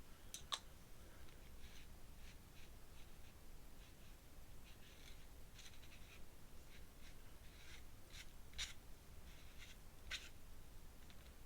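Faint, irregular scratchy strokes and dabs of a paintbrush working paint onto paper, with a few sharper taps.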